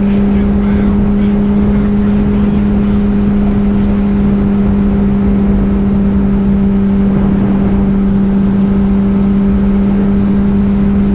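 Honda CBR600RR inline-four engine holding one steady note under constant throttle as the bike cruises, with rushing wind and road noise underneath.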